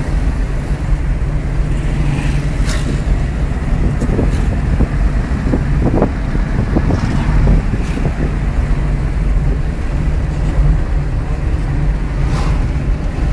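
Car engine and road noise heard from inside the cabin while driving, a steady low rumble with a few brief clicks and rattles.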